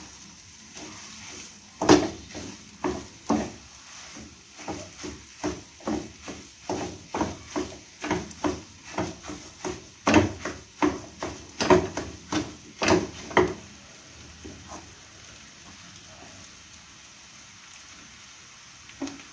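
Wooden spatula knocking and scraping against a non-stick kadai in quick repeated strokes, about two to three a second, as boiled potato is mashed into a chicken and spice filling. The strokes stop about 14 seconds in.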